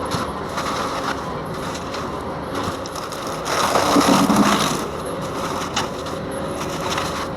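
Bobcat compact track loader running with its forestry mulcher head, the rotor chewing through wood and brush with scattered knocks and cracks. About four seconds in the grinding swells louder for a second or so before settling back.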